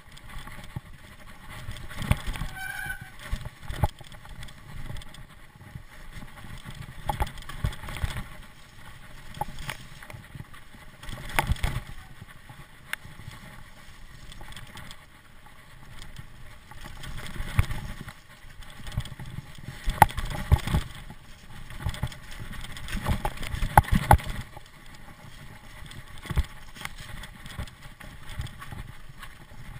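Mountain bike descending a rough dirt trail at speed: tyres rumbling over dirt and roots while the bike rattles and knocks over the bumps, with louder rough patches on the bumpier sections. A brief high squeal comes about three seconds in.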